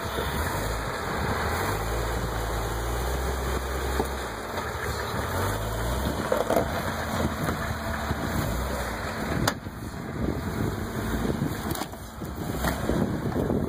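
Jeep Cherokee XJ engine running at low revs as it crawls over rock ledges. Its low hum steps up and down in pitch during the first half, and a few sharp knocks come in the second half.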